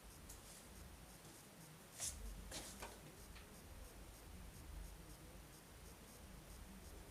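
Faint scraping and rubbing, with a few light metallic clicks a couple of seconds in, from hand and tool work on lawnmower parts.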